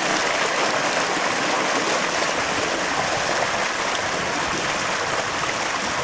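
Shallow creek water rushing steadily over and around rocks in a small riffle.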